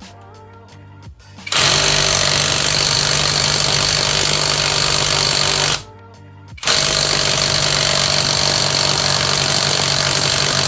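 Panzer PTIW-1180S 18 V brushless cordless impact driver hammering on a bolt through a chrome socket and extension, in two long runs with a short pause between them. It fails to break loose the bolt, which was torqued to 170 Nm.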